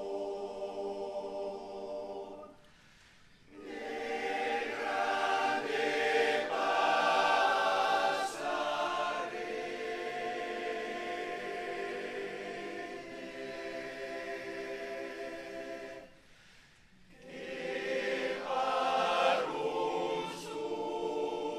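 Male choir singing a cappella, holding sustained chords, with two brief pauses between phrases, about three seconds in and about sixteen seconds in.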